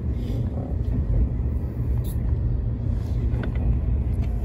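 Steady low rumble of a 485 series electric train running, heard from inside the car: wheels on the rails and running gear, with a couple of faint clicks about three and a half seconds in.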